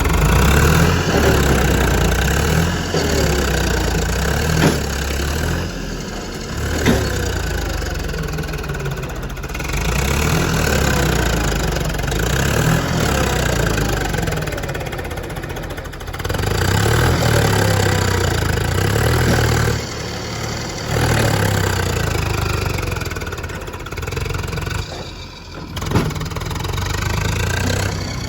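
JCB backhoe loader's diesel engine working while loading soil, its pitch rising and falling again and again as it revs up and settles back. A few sharp knocks ring out along the way, one a few seconds in, another about two seconds later and one near the end.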